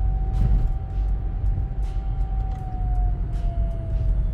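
A car's loud whining noise while driving at about 40 mph: one steady high whine over low road and engine rumble, sinking a little in pitch near the end as the car slows.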